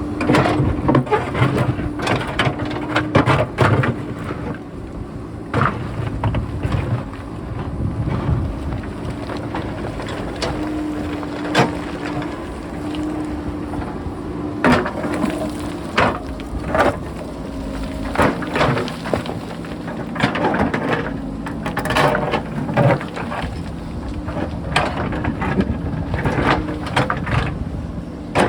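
JCB backhoe loader's diesel engine running steadily under load, while its bucket digs into rock and loose rocks knock and clatter repeatedly.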